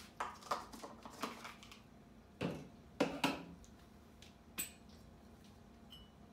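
A metal spoon scraping and tapping against jars and a bowl while spooning ingredients, a string of small scrapes and knocks with the loudest ones two and a half to three and a half seconds in, and a single sharp clink a little after four and a half seconds.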